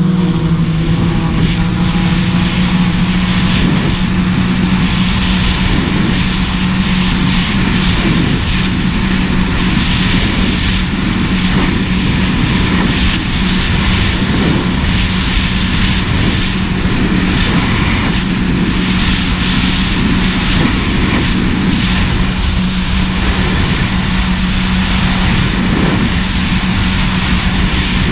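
Jet ski engine running flat out at a steady high throttle, one constant drone, with wind rushing over the microphone and water spray hissing as the hull skims across the water.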